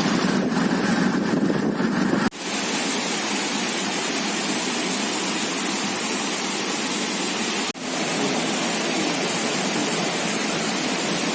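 Steady rushing of a monsoon-fed waterfall, an even wash of noise that breaks off abruptly twice, with a heavier low rumble in the first two seconds or so.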